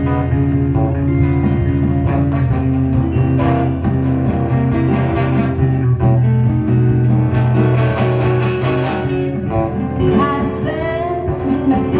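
Live indie rock band playing, with electric guitar and bass over a steady beat; a voice starts singing about ten seconds in.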